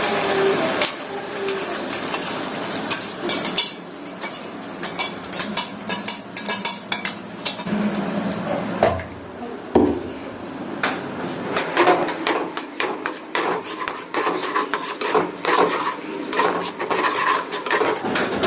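A utensil stirring and scraping thick pizza sauce in a kadai: many quick, uneven clinks and scrapes against the pan as the sauce is sautéed in oil.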